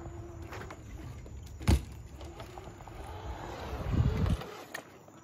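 Bicycle riding with a low rolling rumble, one sharp knock a little under two seconds in, and a louder rumble swelling around four seconds that stops abruptly.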